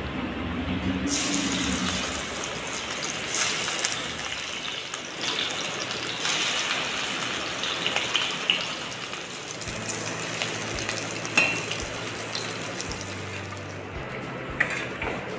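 Hot oil sizzling and crackling in a stainless steel wok as leaf-wrapped lentil-paste pieces shallow-fry; the sizzle starts about a second in.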